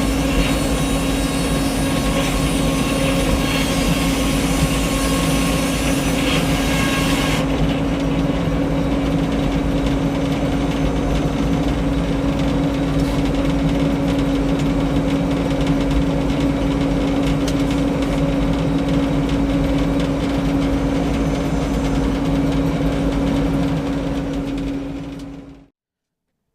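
Frick circular sawmill running with a steady mechanical drone, with a higher hissing noise over it for the first seven seconds or so that then stops. It all cuts off suddenly about a second before the end.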